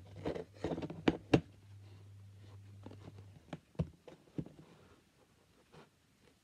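Stainless steel sink strainer clicking and knocking against a plastic sink basin as it is fitted and pressed into the drain hole: a quick cluster of sharp clicks in the first second and a half, then a few single clicks around four seconds in.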